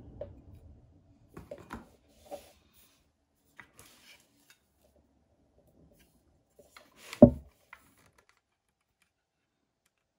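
Handling noises from a cordless circular saw and its metal rip fence being handled and fitted: rustling and a few light knocks in the first seconds, then one loud knock about seven seconds in.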